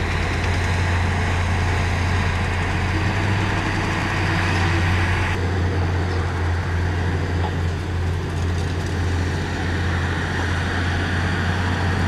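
Heavy diesel engine of earthmoving equipment running steadily, a deep drone under a dense mechanical din. The higher part of the noise drops abruptly about five seconds in.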